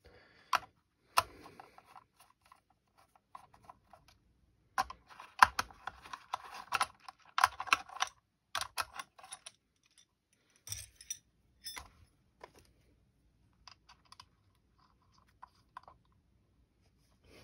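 Small metal parts clicking and tapping as screws and a rail section are handled and a screwdriver works screws into the rail. There is a dense run of clicks from about five to eight seconds in, and scattered taps elsewhere.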